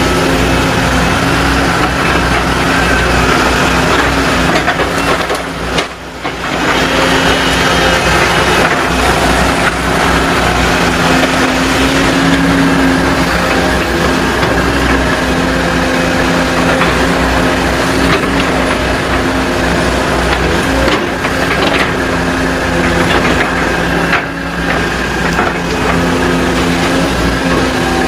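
Volvo crawler excavator's diesel engine running steadily under working load as the machine swings and digs, with brush and wood debris crunching. The level dips briefly twice, about six seconds in and again near the end.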